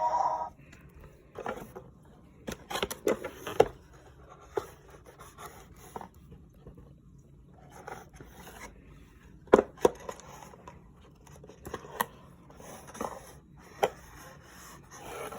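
Toy and its packaging being handled: irregular scraping and rubbing with scattered sharp clicks, the loudest a pair of clicks about ten seconds in.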